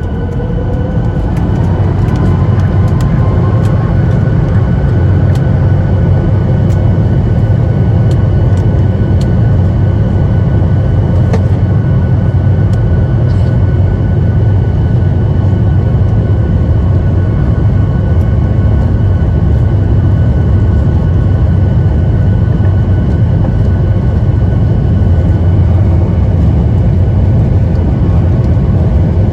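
Boeing 737 MAX 8's CFM LEAP-1B engines spooling up to takeoff power, heard inside the cabin: a rising whine over the first second or two, then loud steady engine noise with a deep rumble and a thin steady whine.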